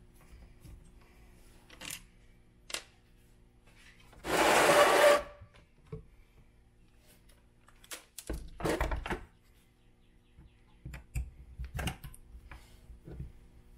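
Hex driver and plastic parts clicking and knocking while screws are backed out of an RC truck's bumper, with two louder rasping bursts about a second long, the first loudest.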